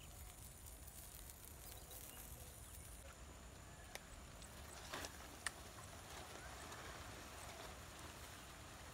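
Near silence: faint outdoor background with a few light knocks, about four, five and five and a half seconds in.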